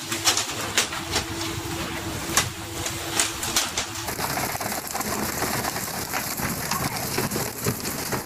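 Sharp knocks and thumps from pole-and-line tuna fishing, with fish landing on the deck and poles clattering, over a steady hum and sea noise. About halfway through the sound cuts to a dense, steady hiss of spray and wind.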